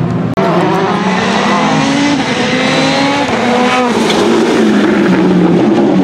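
Citroën C3 rally car's engine revving hard under acceleration, its pitch climbing for about three seconds. Two quick drops in pitch a little past the middle mark gearshifts, and then it runs lower and steadier.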